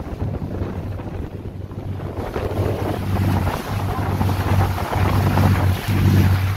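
Motorboat running at speed: water rushing and spraying along the hull and wind buffeting the microphone, over a low engine drone.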